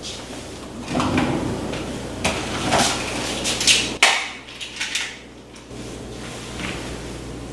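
Dishes and utensils being handled in a kitchen: scattered clinks, knocks and scrapes, the busiest about three to four seconds in, over a steady low hum.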